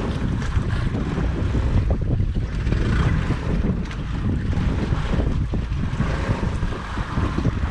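Wind buffeting the microphone in a steady low rumble, over choppy sea washing around a small wooden outrigger fishing boat.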